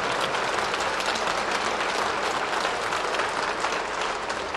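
Studio audience applauding, many hands clapping together, starting to die down near the end.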